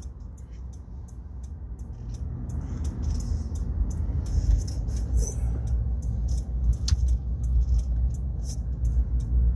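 Car cabin road and engine rumble while driving slowly, growing louder over the first few seconds, with scattered light ticks.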